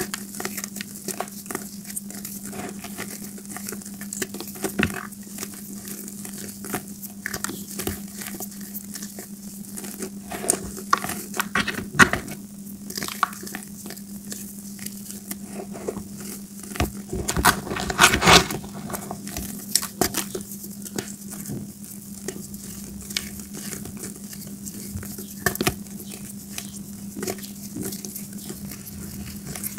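Gym chalk balls crushed and crumbled between the fingers over a bowl of chalk powder: dense, irregular crunchy crackles, with a cluster of louder crunches about two thirds of the way through.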